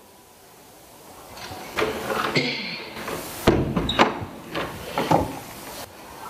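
Wooden door swung shut, a thud about halfway through as it closes, followed by sharp clicks from its metal lever handle and latch.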